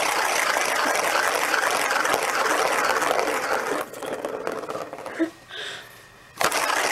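Plastic ball rolling fast around the circular plastic track of a cat scratcher toy, a steady rolling rattle. It stops about four seconds in and starts again near the end.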